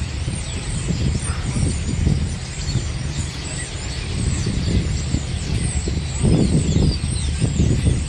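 A large flock of small birds chattering in a tree, many quick high chirps overlapping, over a loud low rumble that swells about six seconds in.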